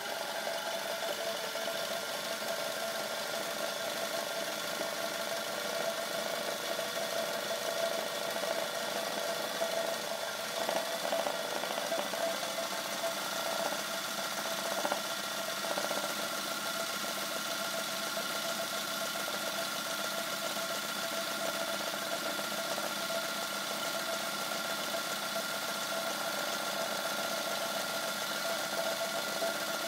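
Sewing machine running steadily, stitching dense satin-stitch embroidery, with a higher whine coming in about halfway through.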